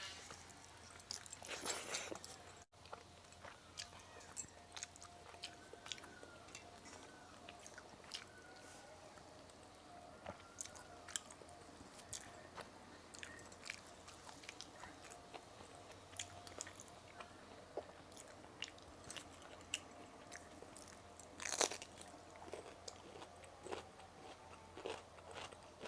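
Close-miked chewing and biting of a meal of rice, curries and fried vegetables, with wet mouth clicks and small crunches throughout and a louder burst of sound near the end.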